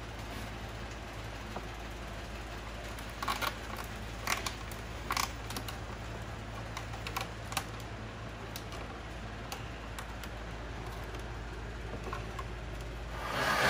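Scattered light clicks and taps from hands working a cracked plastic quad fender and its zip-tie stitching, over a steady low hum. A much louder noise comes in right at the very end.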